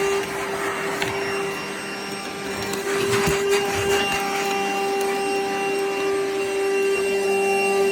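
Vacuum cleaner running steadily with a constant pitched hum, its nozzle scraping and knocking against a surface now and then.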